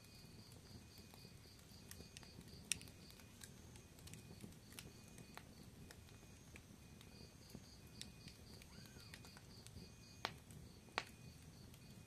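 Wood fire crackling in a fireplace: a low, soft rumble of burning logs with scattered small crackles and a few sharp pops. The loudest pop comes about three seconds in and two more come close together near the end.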